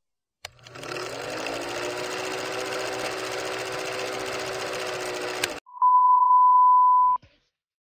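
A click, then a film projector running with a steady whirring rattle for about five seconds, which cuts off. It is followed by a loud, steady, high test-tone beep lasting about a second and a half: the reference tone that goes with colour bars.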